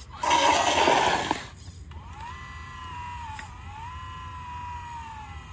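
Electric motor whine of a 1:14 scale RC Caterpillar 988 wheel loader, a high pitched tone that rises and falls slightly as the model is driven and worked. Near the start comes a loud rushing noise lasting about a second.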